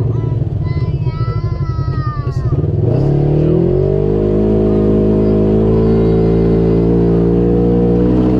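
Polaris RZR XP4 side-by-side's engine running at low, pulsing revs for about three seconds, then revving up and holding a steady higher pitch under throttle.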